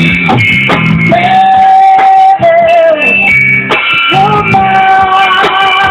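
Gospel worship music: a voice sings two long held notes, the first wavering near its end, over a backing track with guitar and bass.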